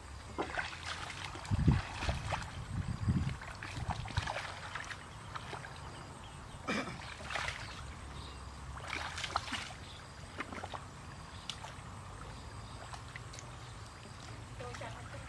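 Irregular splashing and sloshing of shallow muddy water as people wade and grope through the mud with their hands for fish. A few louder low thumps come between about one and a half and three and a half seconds in, over a steady low rumble.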